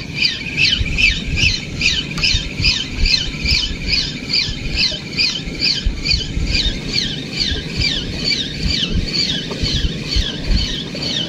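Spinning fishing reel being cranked steadily, squeaking once per handle turn, about three to four squeaks a second, as a hooked fish is reeled in. Low rumbling noise, likely wind on the microphone, lies beneath.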